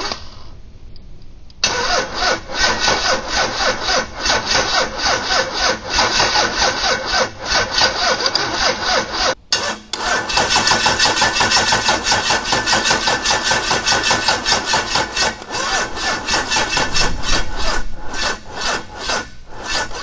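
A 12-valve Cummins 5.9 L inline-six diesel on an engine stand, cranked by its starter without firing: a slow, rhythmic chugging. The cranking starts about a second and a half in, breaks off briefly about halfway, and slows near the end. It is not cranking fast enough to start.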